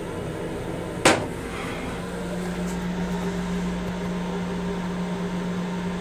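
A plastic toilet seat is let down and clacks once onto the stainless-steel bowl about a second in. From about two seconds in, a steady low electric hum runs under the small restroom.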